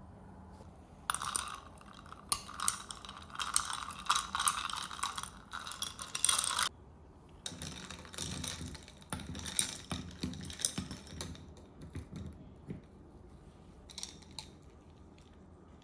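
Rapid clicking and rattling of a small mechanism being worked, in two stretches of several seconds each, followed by a few scattered clicks.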